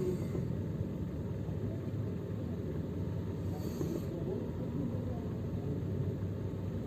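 Steady low rumble of a car's engine heard from inside the cabin.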